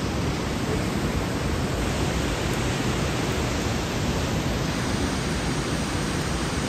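Rushing glacial meltwater stream: a steady, even rush of water noise with no breaks.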